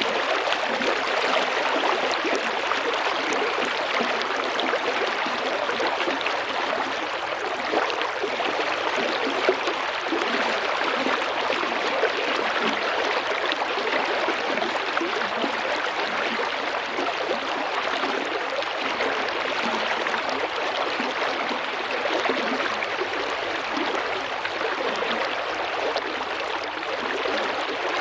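Small river flowing steadily over stones, babbling and gurgling.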